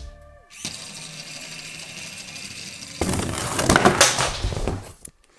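Small robot car's electric gear motors running on a wooden tabletop. About three seconds in, a louder, irregular stretch of handling noise lasts roughly two seconds as the car is grabbed by hand at the table edge.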